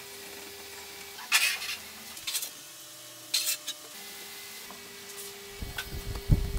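Small steel parts of a homemade scroll saw's blade holder being handled: two short metallic rattles about a second and a half and three and a half seconds in, then a run of dull knocks near the end.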